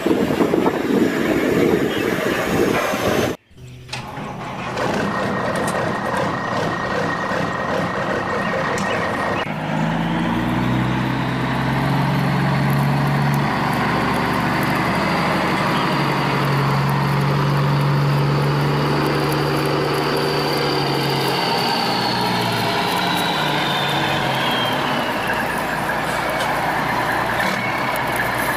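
Heavy truck engine running, its pitch stepping up and down as the engine speed changes, with a sharp cut to a different recording about three and a half seconds in.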